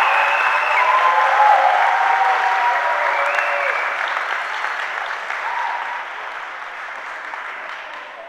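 Audience applause with a few voices calling out in it, fading away gradually and almost gone by the end.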